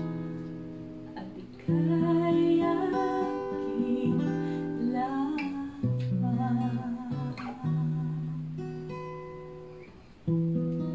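Acoustic guitar playing slowly: chords struck about every two seconds and left to ring out and fade, with a wavering melody line over them.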